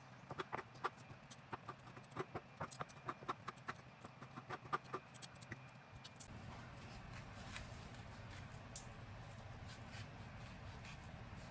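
Light, irregular clicks and taps of kitchen utensils being handled, several a second, stopping about six seconds in, after which a low steady hum remains.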